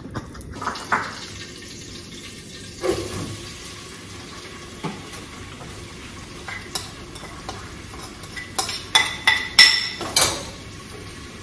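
Metal spoon clinking and scraping against metal cooking pots, with scattered clinks and a quick run of louder, ringing clinks about nine to ten seconds in. Under it runs a faint, steady sizzle of stew frying on the stove.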